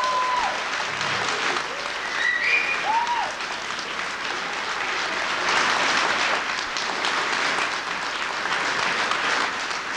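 Theatre audience applauding steadily for the cast's curtain call, with a few shouted cheers in the first three seconds.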